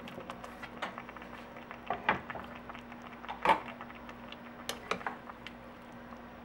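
Thick raw potato slices dropped by hand into a steel pot of simmering chile sauce: a string of short knocks and soft plops as they land on the pot and on each other, the loudest about halfway through. Near the end a wooden spoon starts stirring the pot, over a low steady hum.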